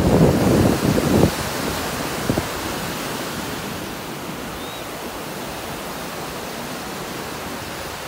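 Surf washing up a sandy beach, a steady even hiss. Wind buffets the microphone for the first second or so.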